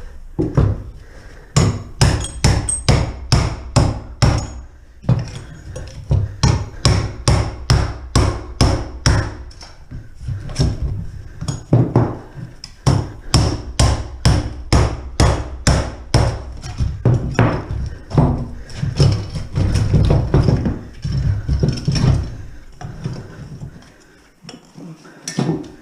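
Hammer blows struck over and over on a plumbing pipe, about two to three a second, in several runs with brief pauses between them: knocking the pipe to break it loose because no saw is on hand.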